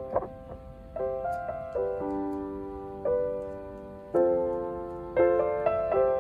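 Soft background piano music: slow chords and single notes struck roughly once a second, each ringing and fading before the next.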